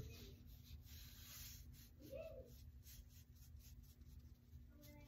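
Faint soft strokes of a watercolor brush on sketchbook paper, over a low steady room hum.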